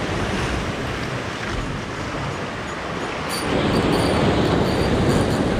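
Sea waves washing and breaking over shoreline rocks, with wind buffeting the microphone. The surf swells louder about three and a half seconds in.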